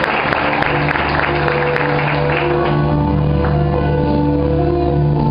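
Worship music begins: sustained keyboard chords over a steady bass, with crowd noise in the hall dying away in the first couple of seconds.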